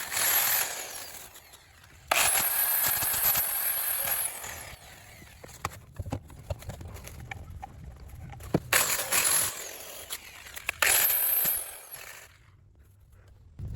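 Handheld power tool run in several bursts, started and stopped: a long run about two seconds in, then shorter runs near the middle and towards the end, with a high whine over each run and small clicks between.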